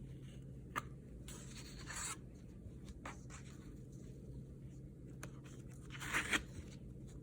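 Short scratching and rustling sounds, like something being rubbed or torn: a sharp click about a second in, a brief rustle near two seconds, and a louder double rasp near the end, over a faint steady low hum.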